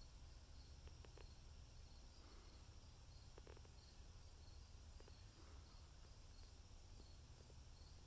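Near silence: faint outdoor ambience with a low hum, a faint high ticking that repeats evenly throughout, and a few soft clicks.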